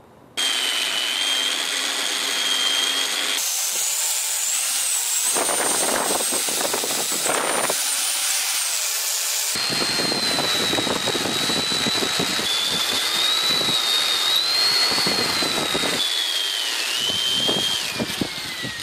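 Angle grinder running and cutting into a solid aluminium casting: a high whine over a harsh hiss. Near the end the whine falls in pitch as the disc spins down.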